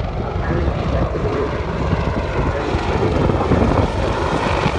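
Boeing AH-64 Apache attack helicopter in flight: a loud, steady rumble of rotor and twin turboshaft engines.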